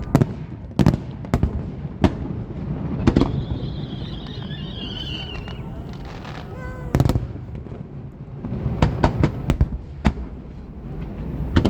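Aerial fireworks bursting overhead: sharp, booming reports at irregular intervals, with a quick run of several bursts near the end, over a steady low rumble.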